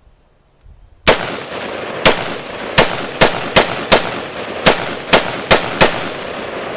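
A rapid series of about ten loud, sharp bangs, each ringing out, starting about a second in and coming unevenly every half second to a second, over a steady hiss.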